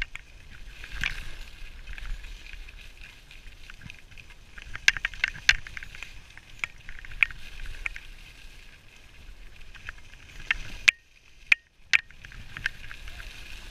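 Skis sliding and scraping over snow on a downhill run, with a low rumble and scattered sharp clicks and knocks. The sound drops out almost completely for about a second near the end.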